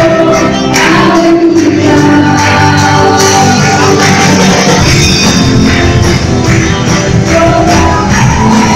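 Women's worship team singing a gospel song into microphones over loud musical accompaniment with a steady beat. The bass gets heavier about five seconds in.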